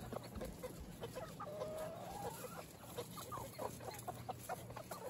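Soft, scattered clucking from a flock of chickens pecking at food, with one longer drawn-out call about two seconds in.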